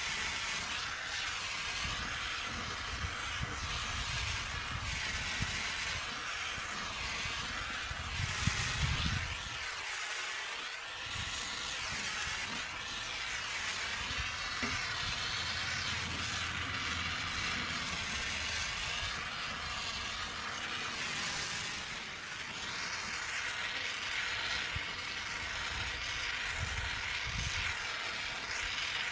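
Hose-fed gas soldering torch hissing steadily as its flame heats a radiator's tank-to-header seam for soft soldering.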